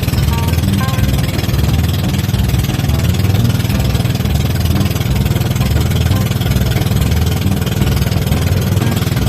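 Boat engine running steadily: a loud, low, throbbing drone.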